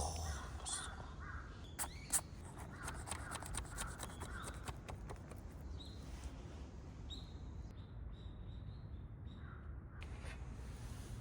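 Crows cawing, with a run of sharp clicks about two seconds in.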